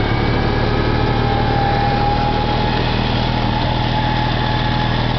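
M274 military mule's engine running steadily as the vehicle climbs a dirt slope.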